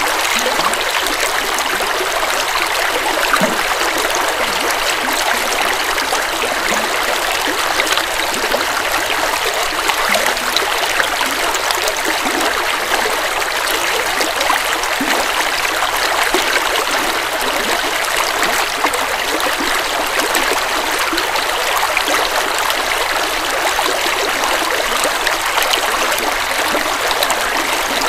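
River water flowing steadily over rocks in a continuous rushing stream, full of fine splashing and trickling detail.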